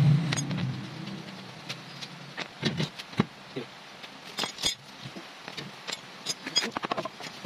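Metal hand tools and hub parts clinking and tapping now and then while a sidecar wheel hub is worked on by hand. Short sharp clicks come in small clusters, with a brief low-pitched sound at the very start.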